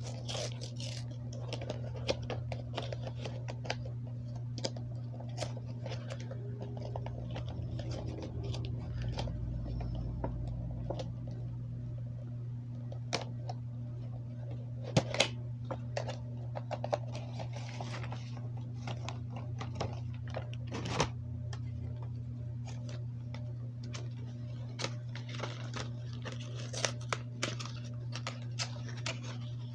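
Cardboard and plastic toy packaging being opened by hand: scattered clicks, taps and crinkles, with a couple of sharper snaps about halfway through, over a steady low hum.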